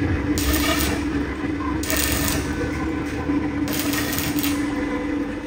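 Electric arc welding on a steel door frame: the arc crackles and sputters in three bursts, each under a second long.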